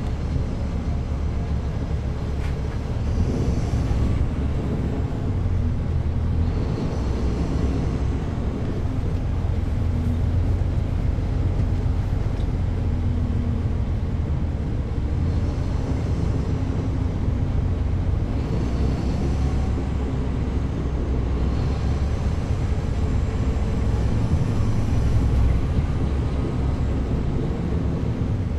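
Caterpillar C13 straight-six diesel of a NABI 40-foot transit bus, heard from the rear seat, working and easing off as the bus drives, with its engine note climbing near the end. Short hissing sounds come through a few times.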